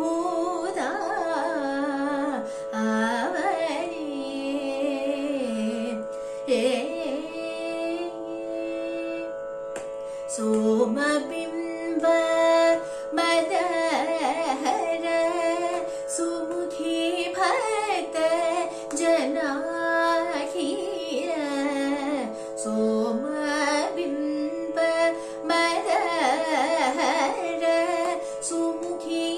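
A young woman singing a Carnatic devotional kirtan, a sliding, ornamented melody with frequent pitch bends, over a steady drone.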